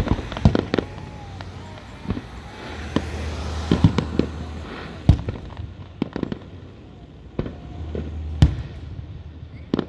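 Aerial fireworks shells bursting overhead: an irregular string of sharp booms and cracks, about a dozen over the span, the loudest about five seconds in and again past eight seconds.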